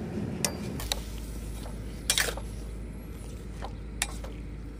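Metal ladle clinking and scraping against a steel wok as it stirs live water snakes: a few sharp knocks, the loudest about two seconds in.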